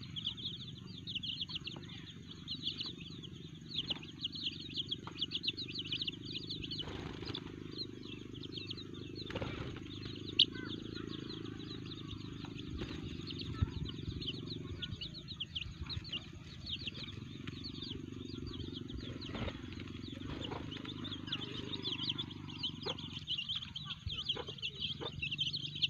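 Young village chickens (ayam kampung) peeping: a dense, continuous run of short high chirps, over a steady low hum. Two sharp clicks stand out, one about ten seconds in and another a few seconds later.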